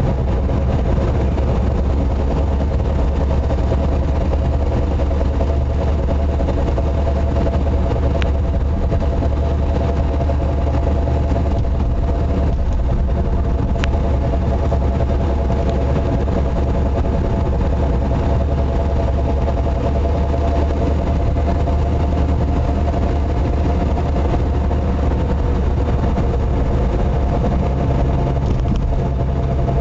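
Suzuki Wagon R (CT51S) running on the road: a steady engine and driving drone with a steady humming tone over it, the abnormal running noise being recorded. Two faint clicks come in the middle.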